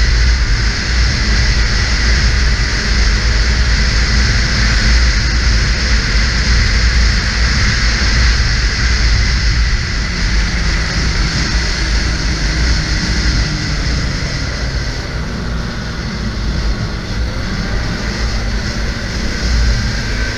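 Snowmobile running at trail speed, its engine and track giving a steady loud drone, with wind buffeting the microphone. The engine eases off a little past the middle and picks up again near the end.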